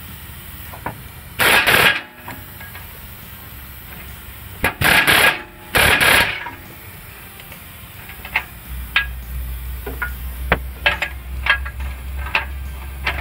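Pneumatic air hammer driving an angled punch into a socket on a seized rear O2 sensor to shock it loose, fired in three short bursts under a second each. After that, a few light metallic clicks, and a steady low hum sets in about two-thirds of the way through.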